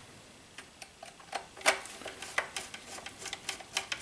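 Light, irregular clicks and ticks of a small screwdriver working a screw into a plastic model-helicopter tail case on its tail boom, with the plastic parts knocking as they are lined up.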